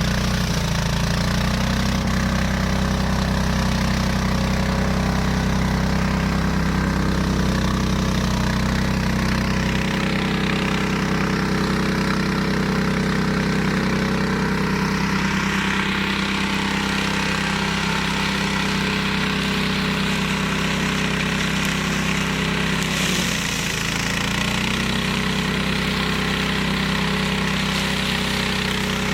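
The 15 hp Hyundai engine of a homemade flail mower running steadily. A louder rushing noise joins about halfway, and the engine's pitch dips briefly near the end.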